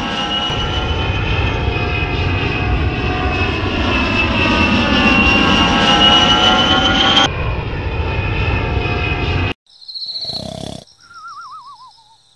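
Jet airliner flyover sound effect: a steady jet rush with a high engine whine that climbs slightly, stopping abruptly near the end. Then a cartoon snore: a short rasping inhale followed by a wavering whistle that falls in pitch.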